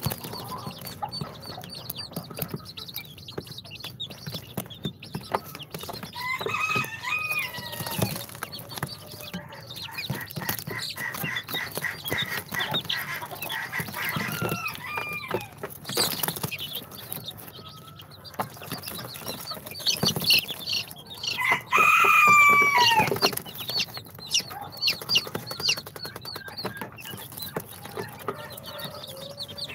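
Baby chicks peeping and cheeping, with many short high chirps and a few longer, louder calls; the loudest comes about two-thirds of the way through.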